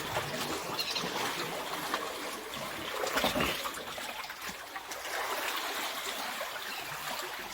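Seawater trickling and washing among shoreline rocks.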